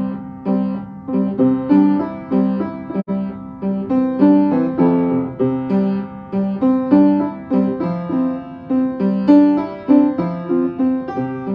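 Piano or electric keyboard played live: a repeating riff of struck chords and single notes, about two a second, each fading before the next. There is a brief dropout in the audio about three seconds in.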